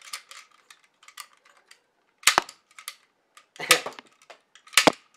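Handheld toy disc shooter firing plastic discs: three sharp snaps about a second apart in the second half, with lighter mechanism clicks before them.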